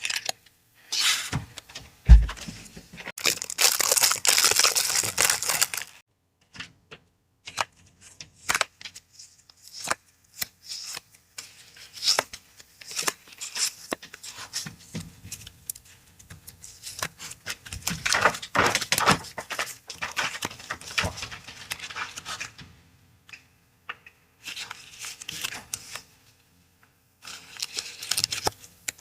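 Paper and packaging being handled and unwrapped up close: crinkling, rustling and tearing in bursts, with small taps and clicks and short pauses. There is a single dull thump about two seconds in, and longer stretches of crinkling around three to six seconds and eighteen to twenty-two seconds in.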